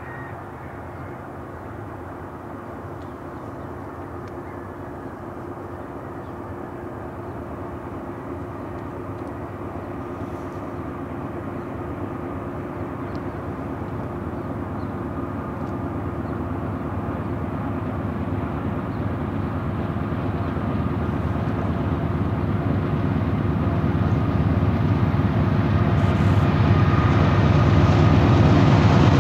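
GE C44-9W diesel locomotives pulling an auto-rack freight train, heard approaching: a steady engine drone with a couple of steady tones that grows evenly louder as the train nears.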